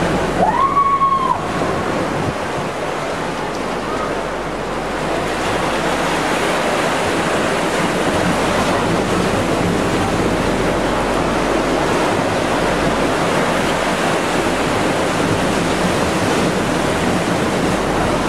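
Steady rushing of sea surf, with one short high call that rises and falls about a second in.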